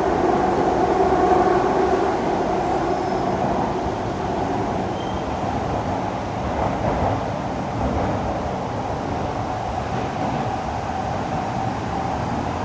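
Siemens C651 metro train running through an underground tunnel, heard from inside the passenger car: a steady rumble of wheels on rail, with a humming tone that fades about two seconds in.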